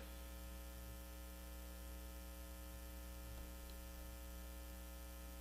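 Faint, steady electrical hum of several even tones with a light hiss, carried on a telephone line that the host says keeps cutting out.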